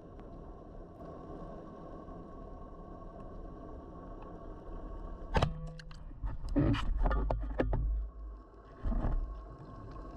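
Underwater, a speargun fires with a single sharp crack about five seconds in, taking a brown meagre. About two seconds of clattering knocks and low thuds follow, then one more knock near the end, over a steady underwater background hum.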